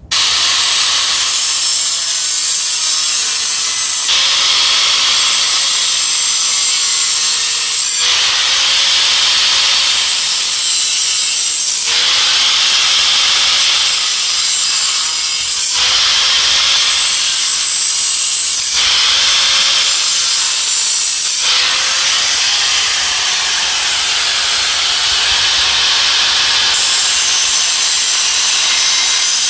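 Angle grinder with a cut-off disc cutting through a steel bed frame: a loud, continuous grinding, its pitch sagging now and then as the disc bites into the metal.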